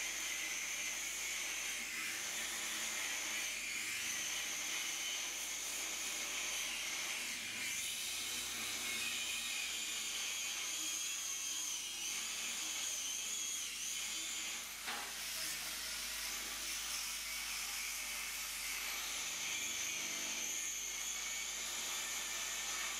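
Angle grinder running under load, cutting welded-on steel studs off a steel centerboard: a steady high whine that dips briefly about two-thirds of the way through.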